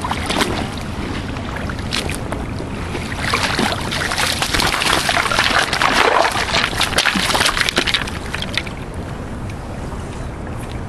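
Shallow river water splashing as wading boots and a hooked salmon are dragged through it, loudest for several seconds in the middle and then easing off. Underneath is a steady rush of moving water.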